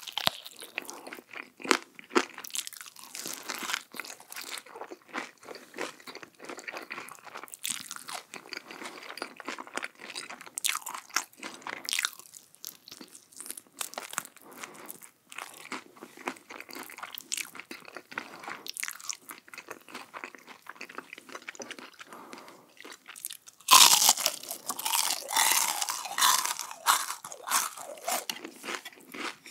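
Close-miked eating: a person chewing crisp food with repeated crunches, then a louder run of crunching bites about three-quarters of the way through.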